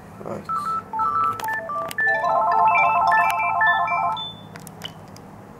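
Gigaset cordless handset beeping as its keys are pressed, then a fast run of dialing tones for about two seconds as it dials out a number.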